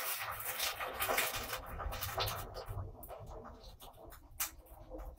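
Water poured from an electric kettle into a pot on the stove, a steady splashing hiss that fades out after about two seconds, followed by a few light clicks and knocks.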